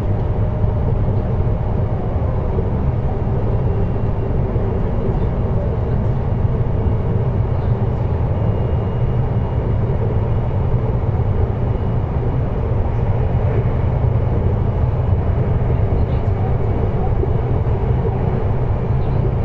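Running sound of a JR Hokkaido 733 series electric train heard from inside its motor car, MoHa 733-1002. Wheels on rail and traction equipment keep up a steady low rumble as the train runs at an even pace.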